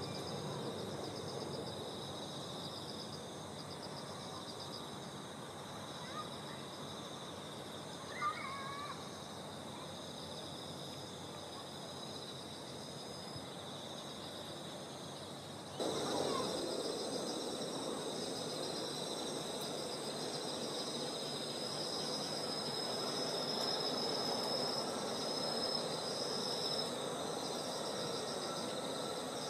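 Autumn insects, crickets among them, chirping in a steady high trilling chorus, with a brief bird call about 8 s in. About halfway through, a low even rushing noise comes in suddenly and stays.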